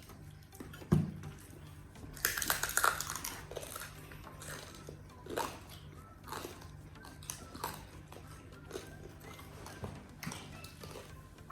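Biting and crunching into crispy deep-fried pork belly (lechon kawali), with a loud crackly crunch about two seconds in and smaller crunches and clicks after. There is a single low thump about a second in, like something set down on the table.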